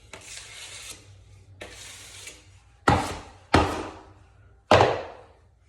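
Drywall taping knife scraping twice across wet joint compound, then three sharp knocks about a second apart.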